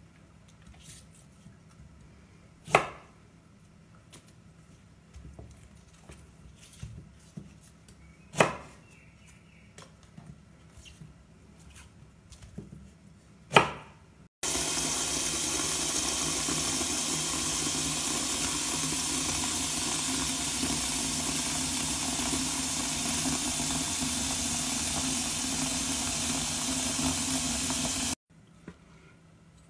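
Knife working on artichokes on a wooden cutting board: faint small clicks and scrapes, with three sharp cuts against the board. About halfway in, tap water starts running into a stainless steel bowl of artichokes, a steady loud rush that cuts off suddenly near the end.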